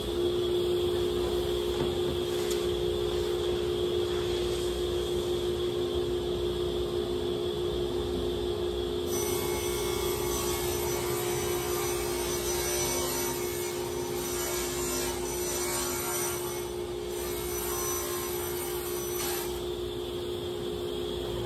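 Table saw running steadily. From about nine seconds in to about nineteen seconds, the blade rips a long, thin sheet of wood paneling, adding a hiss over the motor's hum, then the saw runs free again.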